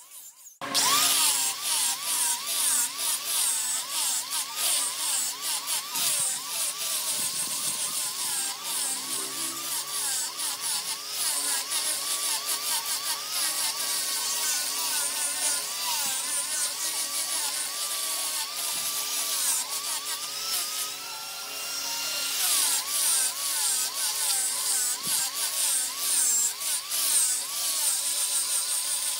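Wood lathe running with a turning tool cutting into the spinning wood blank: a steady motor hum under a wavering, scraping cutting sound. It starts abruptly just under a second in.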